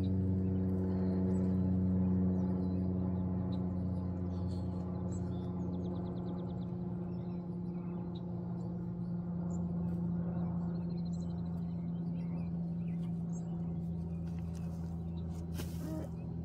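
A steady, low mechanical hum, like a motor or engine running at constant speed, with small birds chirping faintly over it and a short rapid trill now and then.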